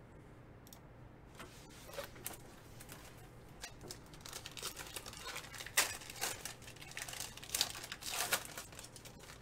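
A silver foil trading-card wrapper being torn open and crinkled by hand. The sharp crackling starts about a second and a half in and grows busier and louder toward the end.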